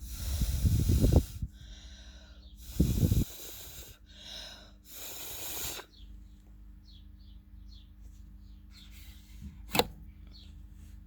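Hard puffs of breath blown onto the bare blades of a bathroom heat-lamp unit's exhaust fan to spin it up, with wind rumble on the microphone. There are two strong gusts, one at the start and one about three seconds in, then a few softer hisses and a single sharp click near the end.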